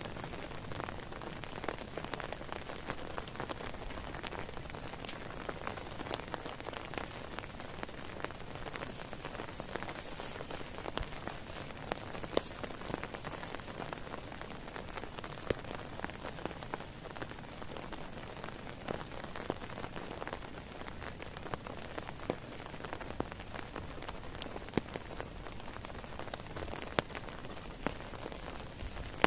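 Steady rain falling, with many individual drops and drips ticking on surfaces.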